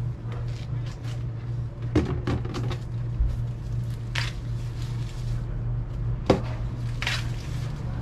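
Ears of corn being snapped off the stalks by hand among rustling corn leaves: a few sharp cracks, the loudest about six seconds in, with short rustles between. A steady low hum runs underneath.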